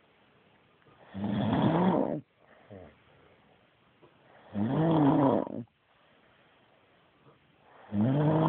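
Loud rhythmic snoring: three snores about three and a half seconds apart, each lasting about a second, with a pitch that rises and then falls. The last snore runs on past the end.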